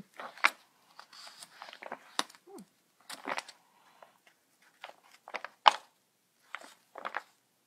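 Pages of a 1966 Whitman dot-to-dot book being turned by hand: a string of short, irregular paper rustles and flicks, with a few sharper snaps. The loudest snap comes a little past halfway.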